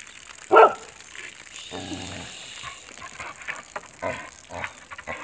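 A puppy chasing a hen: one short, loud animal cry about half a second in, then several softer calls.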